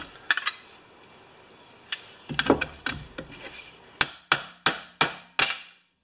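Clicks and a scrape as the metal parts of a riding mower's electric PTO clutch are handled. About four seconds in come five sharp taps, roughly three a second, as the clutch is knocked against a wooden block to seat its parts.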